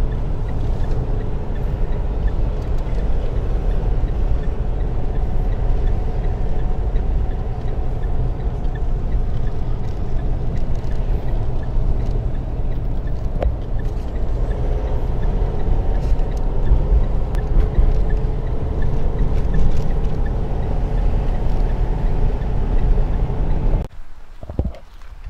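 Steady low rumble of a car driving, heard from inside the cabin: engine and road noise. It cuts off abruptly near the end.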